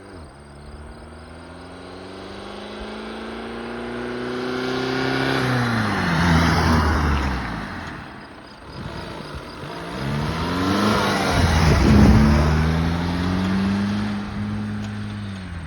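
Volkswagen Jetta engine, fitted with a homemade side exhaust stack, revving up twice: each time the pitch climbs steadily over several seconds and then falls away quickly as the throttle is let off, loudest around the middle of the second run.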